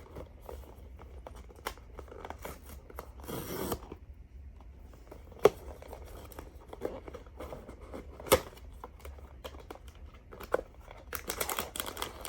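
Blind-box packaging being handled and opened: cardboard and plastic wrapping tearing, rustling and crinkling. Two sharp clicks, about five and a half and eight seconds in, are the loudest sounds.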